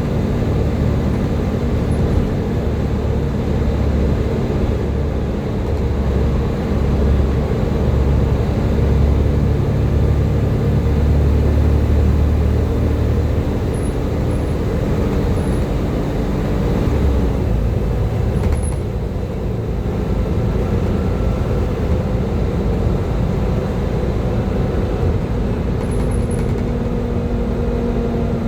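Volvo B7TL double-decker bus's engine running under way, a heavy drone with a steady whine over it. About two-thirds of the way through the drone eases off, and it picks up again near the end.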